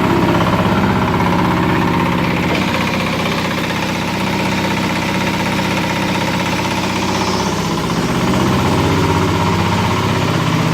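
Engine of a cement-plaster wall-spraying machine running steadily, with a slight shift in its pitch about two and a half seconds in.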